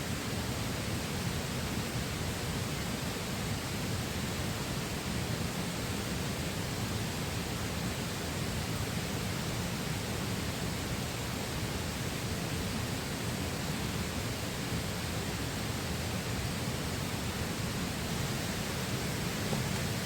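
Steady rushing of a flowing river, an even noise that holds constant throughout.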